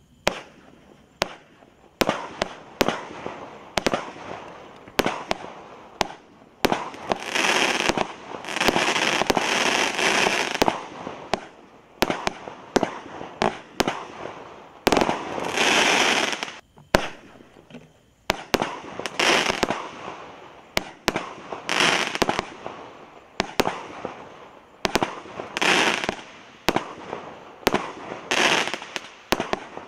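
Spook Fireworks Sonic Attack 16-shot barrage cake firing: sharp bangs one after another, several a second at times. Between them come crackling bursts that each last a second or two.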